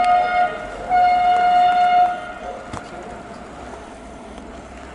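Horn of an FS E.401 electric locomotive sounding: the last of one blast, then a second single-pitched blast about a second long, starting about a second in. The locomotive is running into the station round a curve as it sounds.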